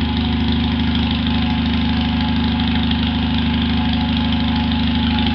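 Straight-piped Honda riding lawn mower engine running steadily at low throttle, with an even, unmuffled exhaust note.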